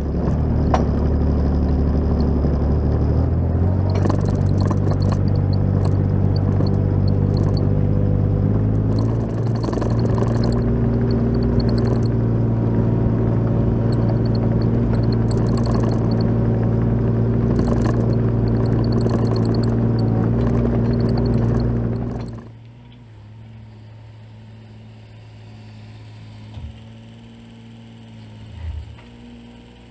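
Kubota mini excavator's diesel engine running close by, rising in speed in two steps, about 3 and 9 seconds in. About 22 seconds in the loud engine sound drops away suddenly to a quieter, steady engine hum.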